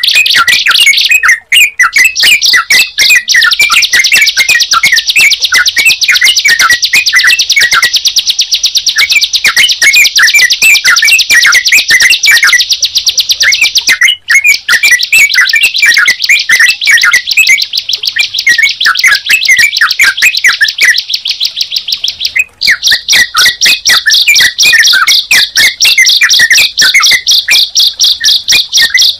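Recorded birdsong of a ciblek (prinia) and a trucukan (yellow-vented bulbul) together: a very fast, high trill runs almost without pause, with repeated lower chirping notes beneath it. There are brief breaks about a second and a half in, about halfway, and about three-quarters through.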